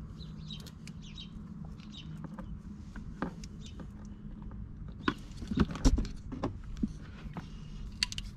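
Small plastic clicks, knocks and wire rustling as terminal pins are pushed by hand into a cruise-control wiring-harness connector to click them home, with a cluster of louder clicks and knocks about five to six and a half seconds in, and a single click near the end.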